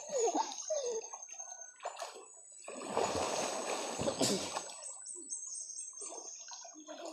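River water splashing and sloshing as people wade and swim through it, with a longer burst of splashing about three seconds in.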